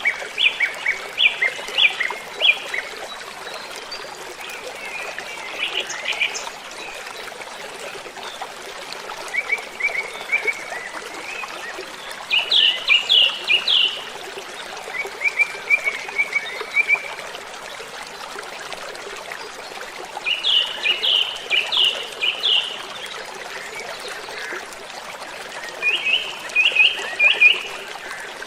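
A waterfall's steady rush of falling water, with songbirds singing short phrases of quick, repeated chirps that come again every few seconds.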